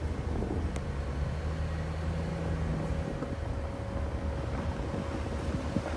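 A vehicle driving on a dirt forest road: a low, steady rumble of engine and tyres with a held hum over it and a few light knocks from the rough surface.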